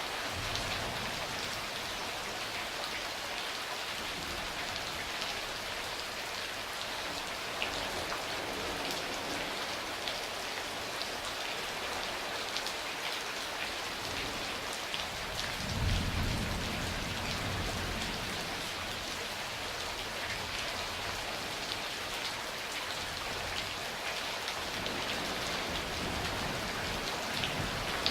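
Steady rain falling and pattering on surfaces, with scattered drop impacts. About halfway through a low thunder rumble swells up and fades out over several seconds.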